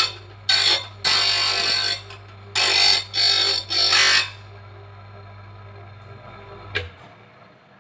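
Hand lens cutting machine's motor humming while a plastic lens is pressed against its spinning cutting wheel, giving loud grinding bursts that stop about four seconds in. Near the end there is a click and the motor hum stops.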